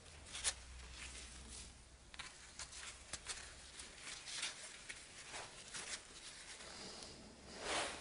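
Faint rustling of rosemary sprigs with scattered light clicks, as hands work a wire-threaded clementine into a rosemary wreath.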